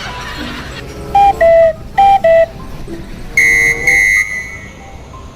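Musical 'telolet' bus horn playing a falling two-note phrase twice, then two higher-pitched blasts, the second shorter.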